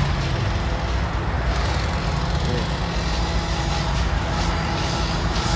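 An engine running steadily, a constant low rumble with a faint steady hum over it.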